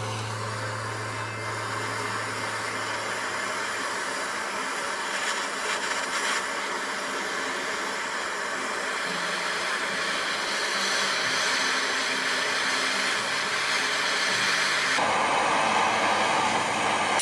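Hand-held butane canister torch burning with a steady rushing hiss as its flame heats the end of a steel fender to red heat for brazing.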